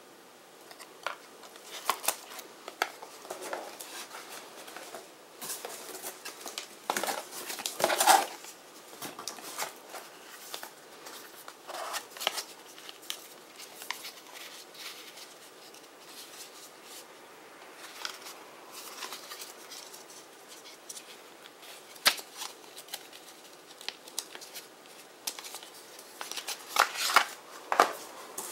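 Packaging handled by hand: scattered clicks, taps and rustles from cardboard boxes, a pen case and a watch box being lifted and set down. The loudest bursts come about eight seconds in and in a quick cluster near the end.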